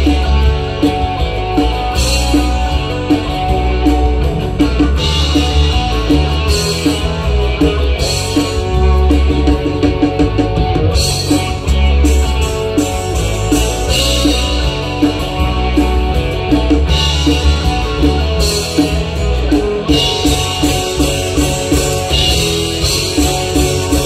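Live rock band playing at full volume: electric guitars, electric bass, drum kit and keyboard, over a steady beat with a pulsing bass line.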